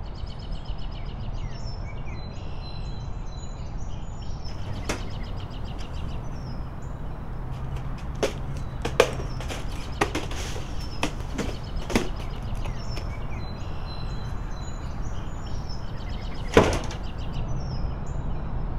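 Axe chopping wood: several separate sharp strikes spaced a second to a few seconds apart, over a steady low rumble with birds chirping.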